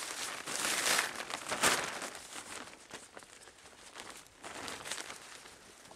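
Slippery hot-air-balloon fabric of a chair seat rustling and crinkling as it is handled and spread open close to the microphone. It is loudest in the first two seconds and swells again a little before the end.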